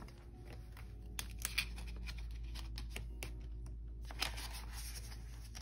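Photocards being slid into clear plastic binder pocket sleeves: rustling and scraping of card against plastic, with sharper scrapes about a second and a half in and again a little after four seconds, over a low steady hum.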